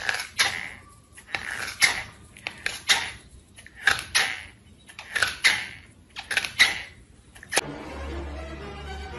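A cat nosing and mouthing a foam slide sandal: short rustling bursts with clicks, about one a second. About three quarters of the way through they stop and a faint low hum takes over.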